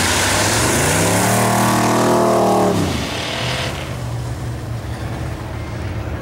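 Rear-wheel-drive ice race car engine accelerating hard, its pitch climbing for about two seconds before dropping off sharply, with engines running lower and steadier after that.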